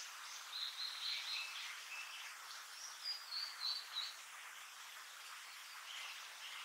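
Blue-and-white flycatcher fledgling calling: a run of short, high notes through the first four seconds or so, over a steady background hiss.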